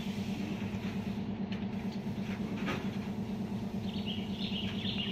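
A steady low machine hum, like a motor or engine running, with a couple of light clicks. A brief high chirping comes near the end.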